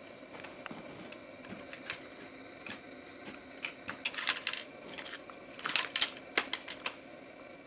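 Foley sound of a submachine gun being handled: sharp metallic clicks and rattles, scattered at first, then coming in quick clusters from about four seconds in.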